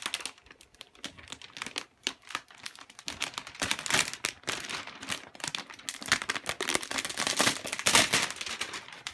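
Clear plastic protective bag crinkling and rustling as it is pulled off an iMac: a dense, irregular run of crackles, loudest about four and eight seconds in.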